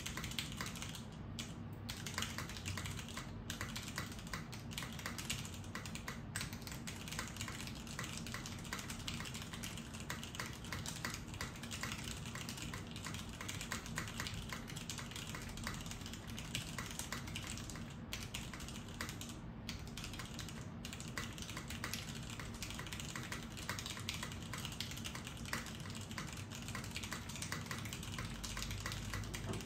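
Continuous typing on a Salamander TKL mechanical keyboard with unlubed, well broken-in stock Cherry MX Brown tactile switches, a PBT plate in a sandwich mount with no dampening, and Cherry-profile POM keycaps: a steady, dense stream of key clacks.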